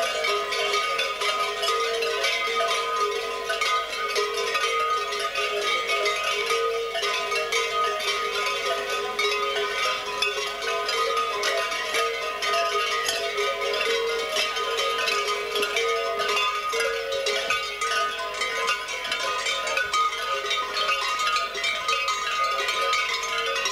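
Kukeri costume bells clanging continuously as the masked dancers walk, a dense jangle of many bells with steady ringing tones.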